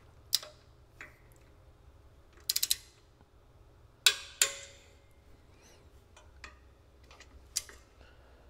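Tekton click-type torque wrench tightening set screws to 10 foot-pounds: sharp single clicks and short runs of quick ratchet ticks, with the loudest pair of clicks about four seconds in.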